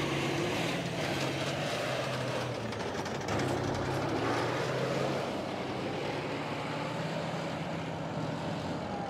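Tank on the move: a steady low engine hum mixed with the clatter and rumble of its tracks on the road surface.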